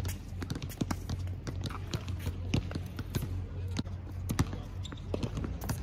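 Tennis balls bouncing and knocking on a hard court, with irregular sharp taps from footsteps and play, over a steady low hum.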